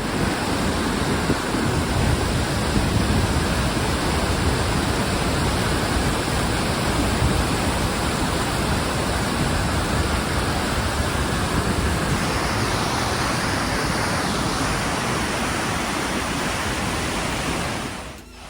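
Låtefoss waterfall rushing: a steady, loud, unbroken roar of falling water.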